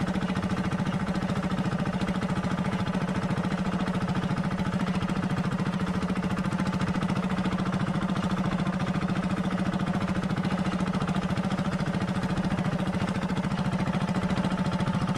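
Engine of a motorized outrigger fishing boat (bangka) running steadily at an even speed, an unchanging low drone.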